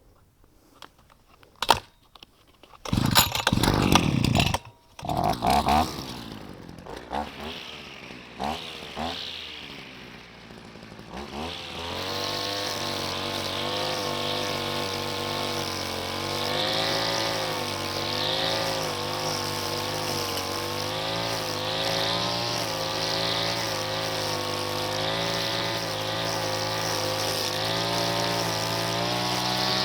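Brushcutter engine starting in a few loud, uneven bursts, then from about twelve seconds in running steadily with its pitch wavering as it spins a new, lighter nylon trimmer-line head.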